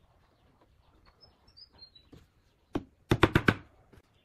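A sharp knock, then five quick taps in about half a second: a small nail being tapped through a thin wooden strip into a pine board to set the pivot of a home-made trammel compass.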